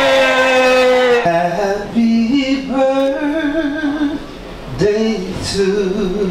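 A long held vocal note cuts off about a second in. Then a man sings into a microphone in wavering phrases, with a short break near four seconds.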